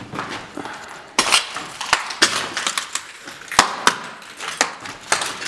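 Footsteps crunching and knocking over a debris-strewn floor: irregular sharp cracks and knocks, about one every half second.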